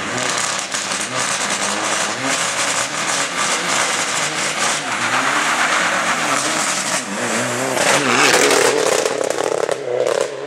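Mitsubishi Lancer Evolution IX rally car's turbocharged four-cylinder engine revving with sharp popping at the stage start, then pulling away hard, its pitch rising and dropping through gear changes, loudest about eight seconds in.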